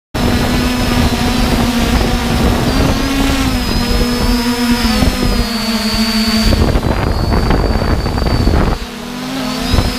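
Multirotor drone's electric motors and propellers running with a steady whine, wind rushing over the microphone. About two-thirds of the way through the rushing thins out, and near the end the motor pitch dips and wavers.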